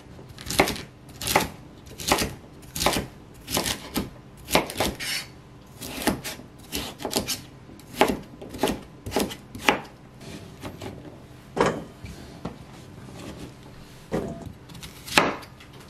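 A kitchen knife chopping cucumber into small cubes on a wooden cutting board, in sharp strokes about one to two a second, with a short pause near the end before a few more knocks.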